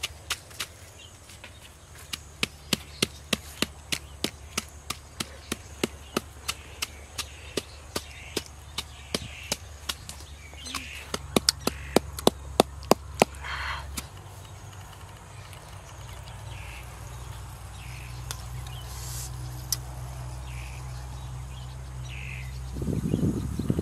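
Wooden pestle pounding in a small clay mortar: regular knocks about two a second, a louder quick run of strikes about eleven to thirteen seconds in, then the pounding stops and only a low steady hum remains.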